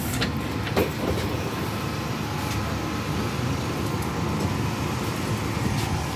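Steady low hum of an EP2D electric train's equipment while it stands at a platform with its doors open, with a few light knocks as passengers step aboard.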